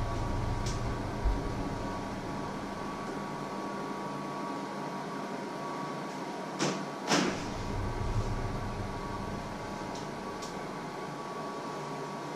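A kitchen cupboard door being handled: a soft knock about a second in, then two sharp clicks around the middle as the door is opened, followed by a few faint clicks. A steady hum runs underneath.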